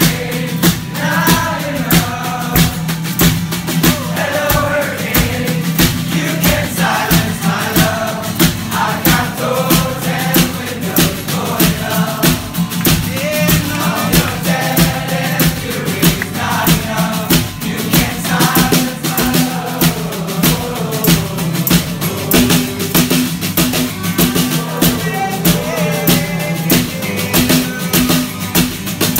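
Live rock band singing together in unison around one microphone, over acoustic guitar and a steady drumbeat.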